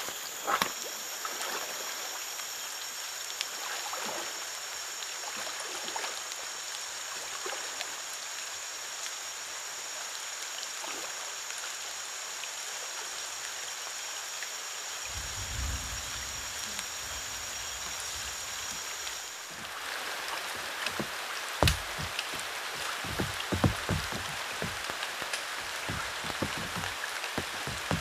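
Rain falling on the still water of a swamp creek, a steady patter with scattered sharper drops. A steady high-pitched tone runs over it and stops suddenly about two-thirds of the way through, after which the patter is a little louder with more distinct drops.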